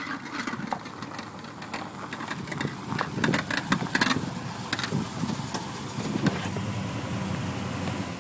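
1970 Chevrolet El Camino running on the road, its engine humming steadily under irregular clicks and clunks, heaviest in the middle: the sound of loose lug nuts on the front driver's-side wheel.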